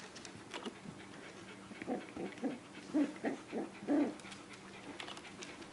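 Australian Terriers whimpering: a quick run of about eight short whimpers starting about two seconds in, the last ones loudest.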